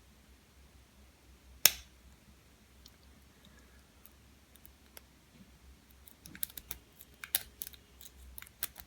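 Metal clicks of a lock pick and tension wrench working the pin stack of an American 1100 series padlock: one sharp click, then a quicker run of small clicks near the end.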